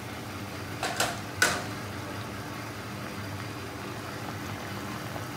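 Pot of sinigang soup boiling hard on the stove, a steady bubbling hiss over a low hum. About a second in come three sharp clinks, the last the loudest.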